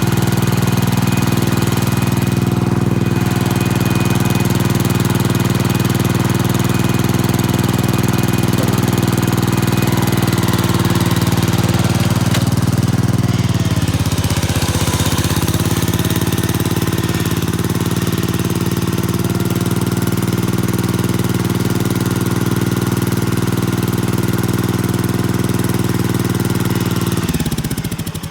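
Gravely 812 garden tractor's engine running steadily, its speed sagging briefly about halfway through, then switched off near the end and running down.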